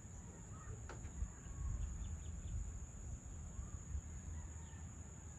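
Faint bird chirps and calls, including a quick falling call about a second in and a run of four short chirps soon after. They sit over a steady high-pitched insect drone and a low rumble.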